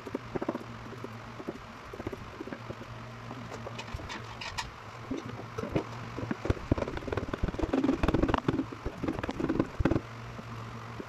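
Kitchen knife mincing ginger on a plastic cutting board: a run of quick knocks, sparse at first and much denser in the second half.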